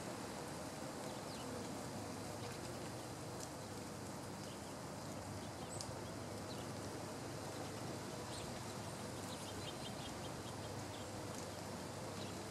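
Outdoor ambience: a steady background hiss with faint, scattered high bird chips and, near the end, a quick run of small ticks.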